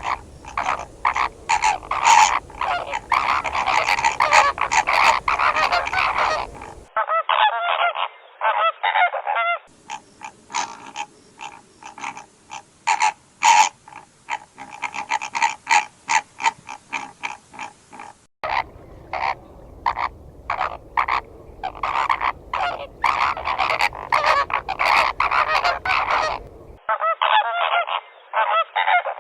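Flock of flamingos honking: a dense chatter of many rapidly repeated calls overlapping. It is made of several recordings spliced together, cutting abruptly from one to the next every few seconds.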